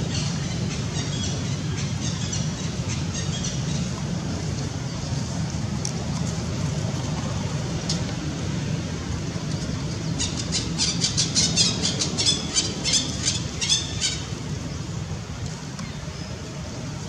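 Steady low outdoor rumble, with a quick run of short, high squeaky calls, about four a second, starting some ten seconds in and lasting about four seconds.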